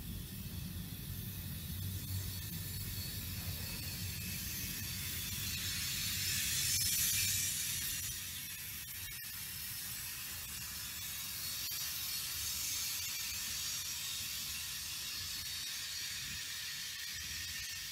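Freight cars, covered hoppers and an autorack, rolling past: steel wheels on the rails make a steady hiss with a few faint clicks. A low rumble under it fades about eight seconds in.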